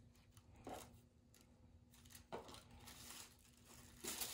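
Faint rustling and crinkling of tissue paper being handled in a cardboard gift box, with a couple of soft handling noises and louder rustling near the end.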